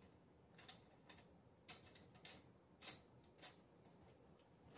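A few faint, irregular clicks, about five over three seconds, from hand work on the small dirt bike's wheel and axle hardware.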